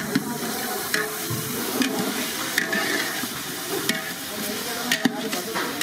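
Thick tomato chicken curry gravy bubbling and sizzling at a hard boil in a large metal pan over a wood fire: a steady hiss with scattered sharp pops.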